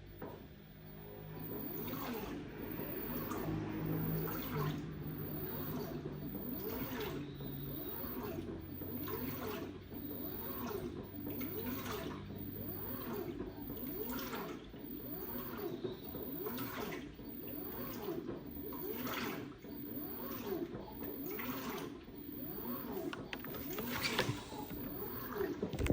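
LG WT16WV6 16 kg washing machine agitating its wash load, water sloshing in repeated surges about once a second. A low motor hum sounds under the first half and fades out about halfway through.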